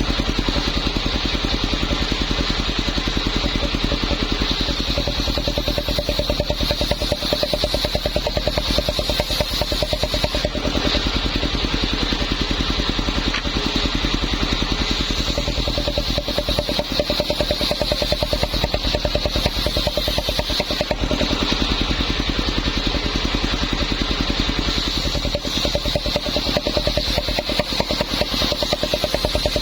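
Homemade circular saw rig running steadily, its small engine pulsing evenly.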